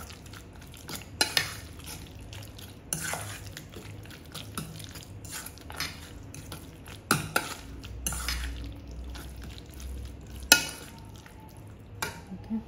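A metal fork stirring a creamy shredded-cabbage mixture in a stainless steel bowl, with irregular sharp clinks where the fork knocks and scrapes the bowl, the loudest near the end.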